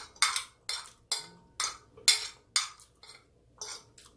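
Metal spoon clinking and scraping against a plate, about two strokes a second, as rice and stew are scooped up.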